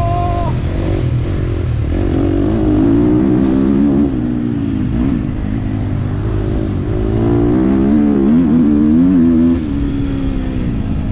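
Motocross bike engine running under the rider, revving up and rising in pitch twice, about two seconds in and again about seven seconds in. The revs drop back sharply at about nine and a half seconds.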